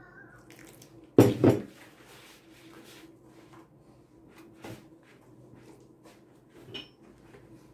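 A short splash of water poured from a glass jug into a plastic bowl of flour, in two quick gushes about a second in. It is followed by soft handling sounds and a couple of light knocks as hands knead stiff dough in the bowl.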